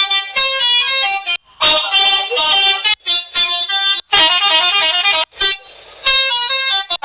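Telolet multi-tone horn playing its 'te-lo-let' tunes: several horn tones at once stepping through short melodic phrases, about five loud bursts separated by brief breaks.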